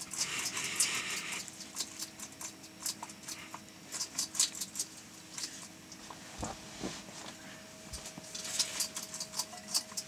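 Bearded dragon crunching Dubia roaches: an irregular run of sharp, crackling clicks, coming in clusters.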